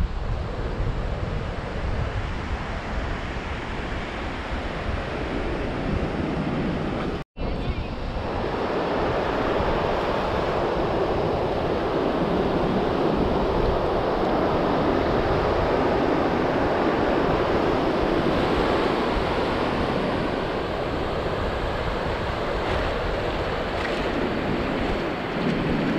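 Ocean surf washing steadily onto the beach, with wind buffeting the microphone. The sound cuts out for a split second about seven seconds in, then the surf continues fuller and steady.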